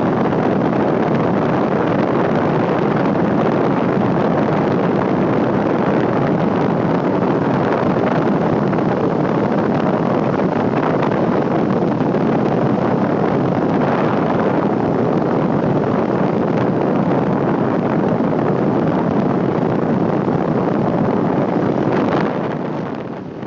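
Steady wind rush over the microphone of a moving motor scooter, with road noise, dropping slightly near the end.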